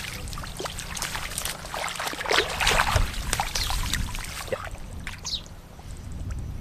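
Shallow water splashing and sloshing irregularly as fish are caught by hand, busiest for the first four seconds or so and then easing off. A steady low hum runs underneath.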